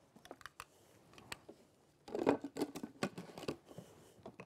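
Scattered clicks and light knocks of an electric blender's jar being set on its motor base and the lid pressed down, with a denser clatter about two seconds in.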